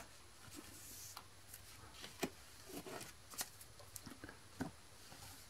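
Faint handling noises of Pokémon trading cards: soft rustles and a few short taps as a card is set down on the table and the hands move the cards and packs about.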